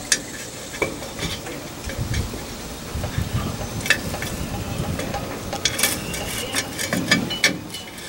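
Clicks, scrapes and rattles of a new parking brake cable and its coiled spring being worked through the backing plate of a 1974 Ford F100's rear drum brake, with a quick run of sharp clicks about two-thirds of the way through.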